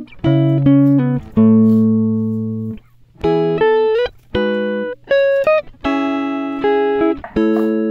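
Background music: plucked, guitar-like notes and chords struck one after another, each starting sharply and fading away.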